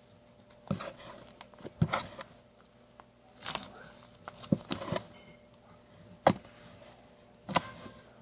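Handling noise: about five sharp clicks and knocks with crinkly rustling between them, as things are moved about on a table.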